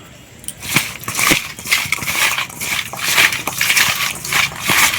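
Hands rubbing salt and turmeric into small river fish: a quick, irregular run of mixing and rubbing noises that starts about half a second in.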